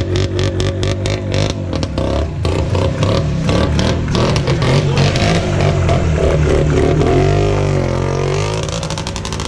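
Minsk motorcycle engine running and being revved, its pitch rising and falling, dipping near the end.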